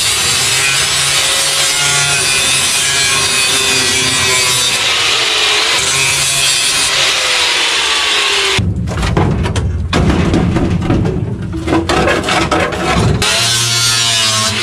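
Angle grinder with a cutoff wheel cutting through a rusted sheet-metal car floor pan, a steady hiss with a motor whine that sags and rises under load. About eight and a half seconds in the cutting stops for several seconds of knocks and clatter, then the grinder cuts again near the end.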